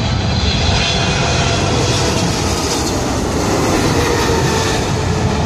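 Boeing 777 jetliner on final approach with landing gear down, passing low overhead: a loud, steady rush of jet engine noise with a faint whine over it.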